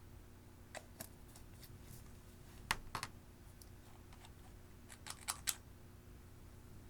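Clear slime being squished and pressed by hand, giving scattered sticky clicks and small pops, in one cluster near the middle and another near the end.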